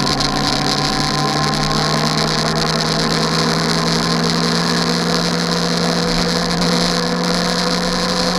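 Steady engine drone with a constant hiss over it.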